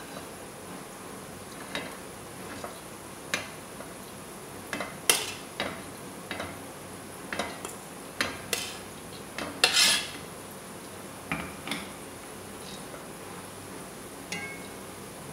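Boiled basmati rice being spooned into a cooking pot, the spoon knocking and scraping against the strainer and the pot. The result is a run of scattered, irregular clinks and knocks, loudest about ten seconds in, with a short ringing clink near the end.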